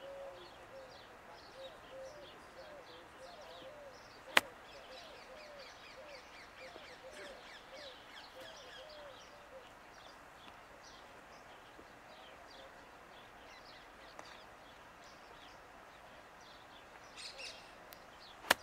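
Two sharp clicks of a 60-degree wedge striking a golf ball on chip shots, one about four seconds in and one near the end, over steady bird chirping and calling.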